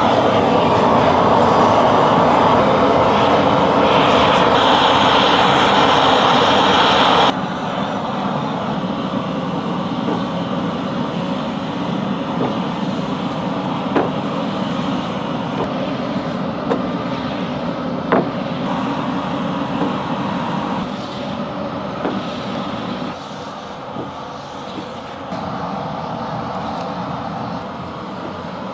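Steady mechanical noise of workshop tools working on wood. It is loudest at first, drops to a quieter running sound about seven seconds in, and has a few sharp clicks partway through.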